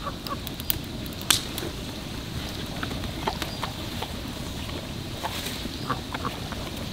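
Outdoor ambience: a low steady rumble with scattered small sharp clicks and ticks, one louder click about a second in.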